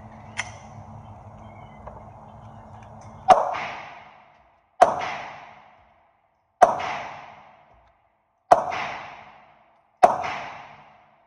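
Five pistol shots at an indoor range, evenly paced about one and a half to two seconds apart, each a sharp crack with a long echoing decay; a light click comes about half a second in.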